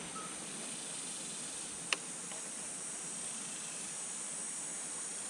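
Steady high-pitched drone of insects, with a single sharp click about two seconds in.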